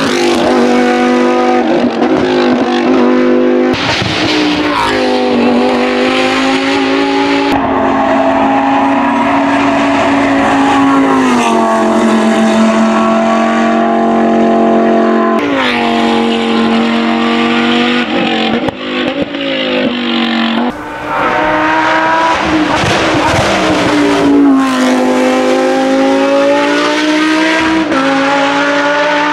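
Lamborghini Huracán Super Trofeo Evo 2's naturally aspirated V10 racing engine at full attack. The engine pitch repeatedly climbs under acceleration and drops at gear changes and braking, with a few sharp cracks about two-thirds of the way through.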